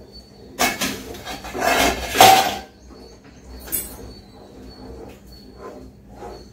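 Metal kitchenware clattering: a steel pot and utensils knock against the stove and pan in a quick series of clanks, the loudest about two seconds in. Then softer scraping as the semolina mixture is stirred in the pan.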